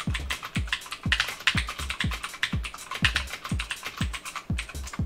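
Rapid typing on a mechanical keyboard with clicky blue switches, sharp key clicks in quick succession. Background music with a steady low beat runs underneath.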